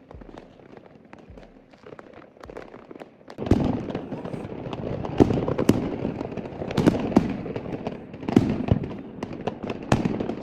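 Fireworks going off: scattered faint cracks at first, then, about a third of the way in, a much louder run of close bangs and crackling that keeps going.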